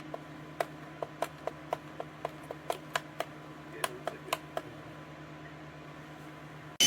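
About fifteen light clicks, roughly four a second, for the first four and a half seconds over a low steady hum. Near the end the motor of a cordless stick vacuum cleaner starts suddenly and runs loudly.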